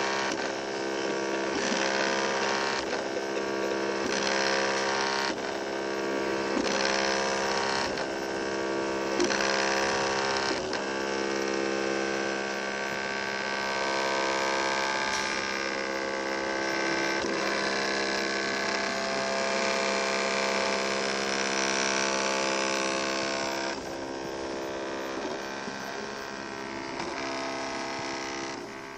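FDM 3D printer printing: its stepper motors whine in several steady tones that change pitch about every second as the print head starts each new move.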